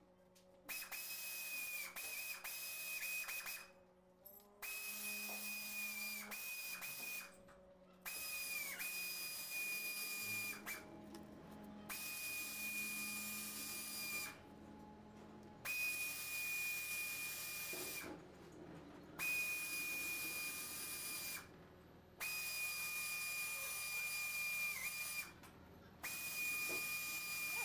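A high-speed power tool whining in about eight bursts of one to four seconds each, with short pauses between; its pitch sags briefly now and then as it takes load.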